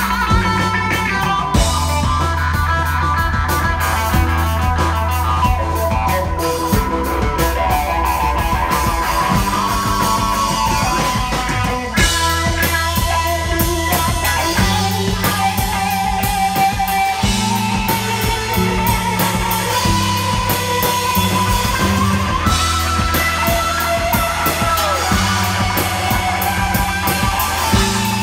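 Live instrumental psychedelic rock jam: electric guitar, bass and drum kit playing loudly, with held bass notes under dense cymbal hits and guitar lines. The band drops back briefly and comes in again with a new section about twelve seconds in.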